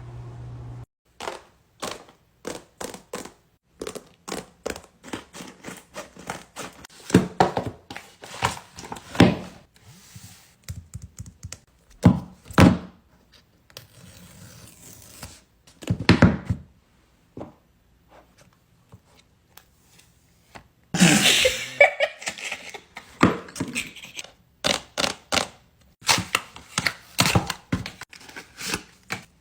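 Hands opening paper blind bags: a run of light taps, knocks and paper crinkling, with a longer stretch of paper tearing about three-quarters of the way through.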